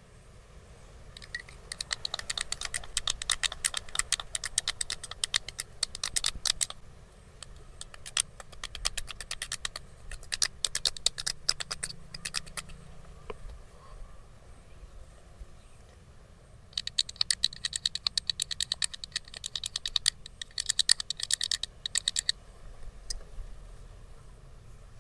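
Wooden massage sticks tapping rapidly on the body, a fast run of sharp clacks. There are two long bursts of several seconds each, with sparser, slower taps between them.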